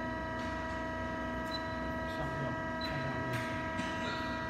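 CNC automatic pipe-cutting cold saw machine humming steadily with several fixed whining tones while it stands ready, not cutting. Short high beeps from touchscreen keypresses sound twice, about one and a half and three seconds in.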